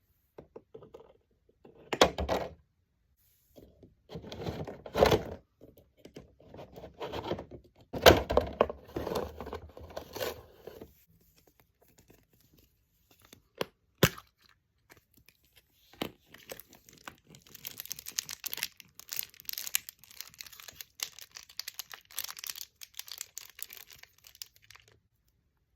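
Packaging being handled and opened: several loud rustling, tearing bursts, a sharp click about halfway through, then a long run of fine crinkling.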